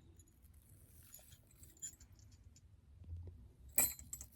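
Small craft jingle bells jingling faintly as they are handled and threaded onto a cord, with one sharper clink near the end.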